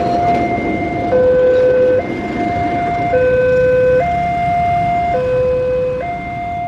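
Railway level-crossing warning alarm sounding two tones, high and low, that alternate about once a second. The rumble of a passing train runs beneath it.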